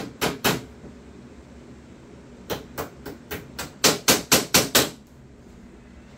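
A hammer tapping small tacks into wood: three taps, then after a short pause a run of about ten quicker taps, about four a second, the last few the hardest.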